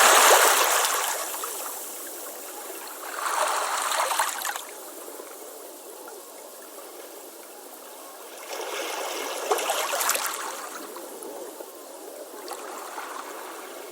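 Ocean waves washing up a beach in repeated surges of hissing surf. The loudest surge comes right at the start, with others about three seconds in, around nine to ten seconds, and near the end, and there is no low rumble.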